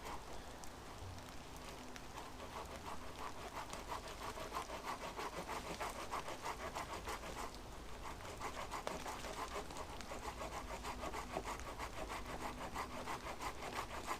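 Steady rain falling, with many close drops ticking in a dense, continuous patter.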